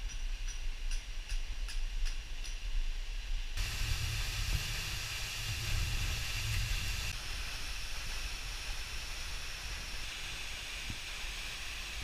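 Steady rushing noise of a tall waterfall and the rocky stream below it. It comes in suddenly a few seconds in, after a quieter hiss with faint ticks, and eases a little about halfway through.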